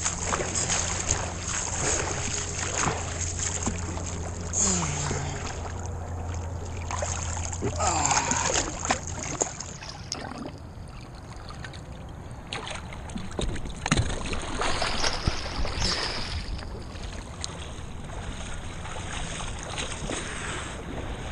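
Water splashing and sloshing against a jet ski's hull, with short knocks. A low steady hum runs under it for about the first eight seconds, then stops.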